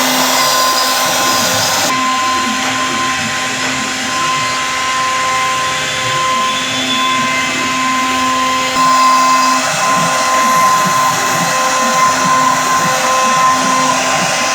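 CNC wood router spindle running and cutting wood: a steady high whine over a constant cutting hiss. The sound shifts abruptly twice, about 2 seconds in and about 9 seconds in.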